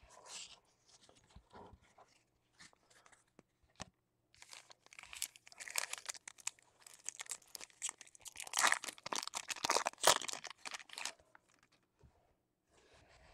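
Wrapper of a trading card pack being torn open and crinkled. A few faint clicks come first, then several seconds of dense crackling.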